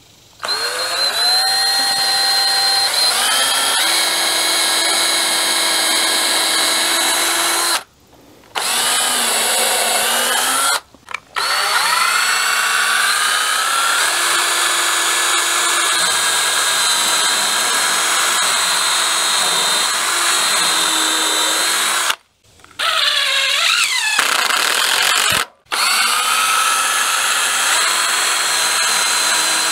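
Cordless drill running in long stretches of several seconds, boring pilot holes into rafter timber. Each start rises in pitch as the motor spins up, and it stops briefly four times.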